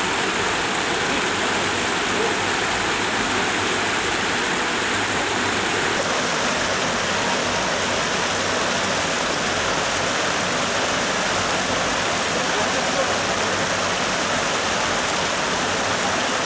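Stream water rushing and splashing over a small drop in a steady, even noise.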